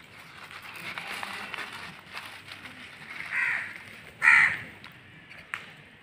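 House crows eating scattered bhujia, with faint crunching and pecking clicks. Two short caws come a little past halfway, the second the louder.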